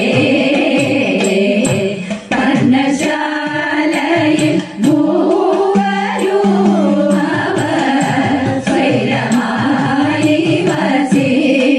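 A group of women singing a Malayalam kaikottikkali (thiruvathirakali) song together, with sharp hand claps recurring in rhythm throughout. Near the middle the singers hold one long note.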